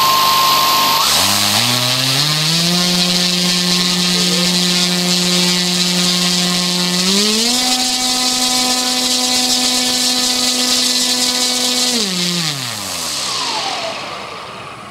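C6374 200kv brushless outrunner motor spinning a propeller on a test stand, a steady whirring hum with a whine. About a second in its pitch drops low and climbs back to a steady speed, steps up to a higher speed around seven seconds in, then winds down from about twelve seconds and fades as the motor is throttled back to a stop.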